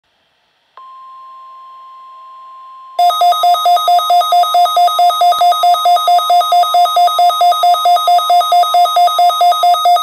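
A steady tone, the NOAA Weather Radio warning alarm tone, comes faintly through a radio speaker from about a second in. At about three seconds Midland S.A.M.E. weather alert radios go off with a loud, rapid beeping alarm, about five beeps a second, set off by the required weekly test of the warning alarm.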